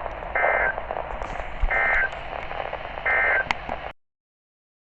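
NOAA Weather Radio SAME end-of-message code: three short bursts of two-tone data squawks about 1.4 s apart over radio static, marking the end of the alert. The audio cuts off about four seconds in.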